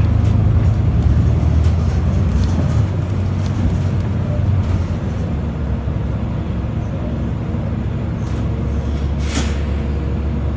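Cabin sound inside a New Flyer XD60 articulated diesel bus: a steady low engine drone with road noise and scattered rattles, easing a little as the bus slows to a crawl. A brief hiss comes about nine seconds in.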